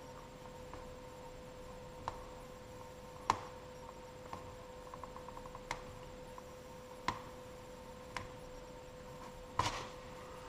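Scissors cutting a gasket sheet: scattered sharp snips and clicks of the blades, the loudest about three seconds in and a quick run of small ticks around five seconds, over a steady hum.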